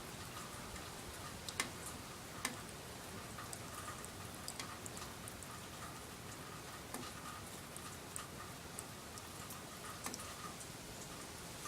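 Steady rain with individual drops ticking irregularly onto a surface, two sharper drop hits about one and a half and two and a half seconds in.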